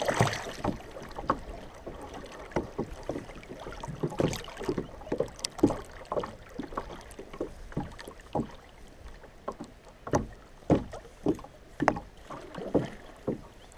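River water slapping and splashing against a fishing kayak's hull as it rides a fast, choppy current: a steady rush of water broken by irregular knocks and splashes, a few a second.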